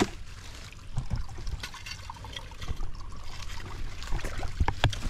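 Shallow, muddy pond water splashing and trickling as it is bailed out, with a few sharper splashes near the end.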